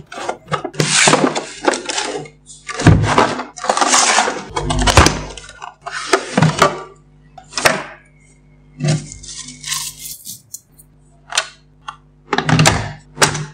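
Cardboard box and plastic packaging of a wireless intercom phone being handled during unboxing: a series of sliding, scraping rubs and light knocks as the sleeve comes off and the unit is lifted from its tray.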